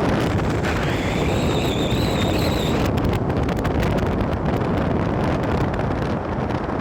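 Wind buffeting the microphone with the rumble of a vehicle moving along a road, a steady dense noise. About a second in, a faint high whine comes in and holds for nearly two seconds.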